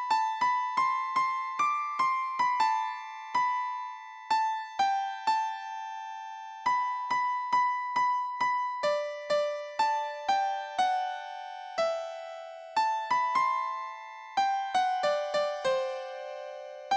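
Background music: a simple keyboard melody of single struck notes, each fading quickly, stepping lower in pitch in the second half.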